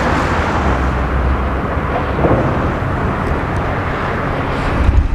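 Steady rushing noise of wind blowing across the microphone on an open rooftop, with no clear pitch or rhythm.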